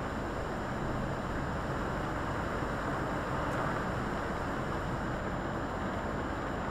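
Volvo FH articulated lorry on the move, heard from inside the cab: a steady low rumble from the engine with an even hiss of tyres on the wet, flooded road.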